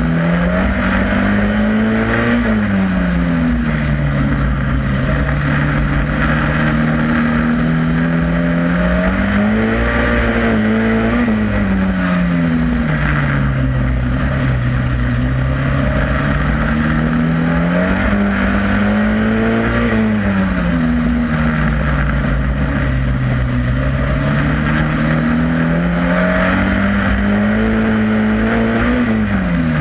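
Onboard sound of a Superstox racing stock car's engine at speed. The engine note climbs and then drops back four times, about every eight seconds, as the car accelerates and lifts around the oval, with steady wind and road noise underneath.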